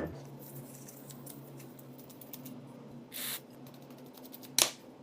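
Small handling noises: faint scattered ticks, a short scraping swish about three seconds in, and one sharp click near the end.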